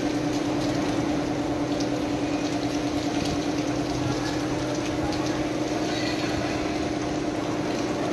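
Heavy rain pouring onto wet pavement, a steady hiss of falling and splashing water. A steady low hum runs underneath.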